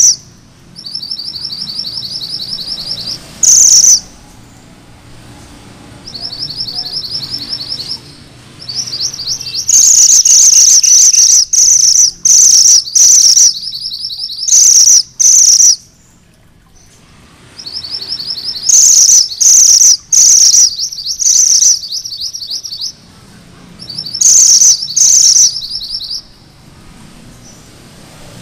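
Red minivet ('mantenan gunung merah') singing: high rapid rolling trills of about two seconds each, the 'ngerol' song, alternating with bursts of loud sharp repeated chirps, in several bouts with short pauses between.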